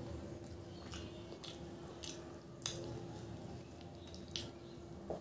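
Close-up eating by hand: wet chewing and lip smacks, with a series of sharp, wet clicking smacks about half a second apart, then fingers squishing into soft curried peas (ghugni) near the end. A faint steady hum runs underneath.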